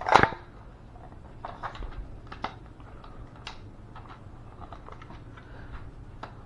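Hard plastic clack as a black toy gun is worked by hand, followed by scattered light clicks and rustling handling noise.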